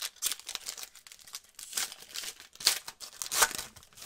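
Foil wrapper of a trading card pack being torn open and crinkled by gloved hands: a series of short rustles, the loudest about two and a half and three and a half seconds in.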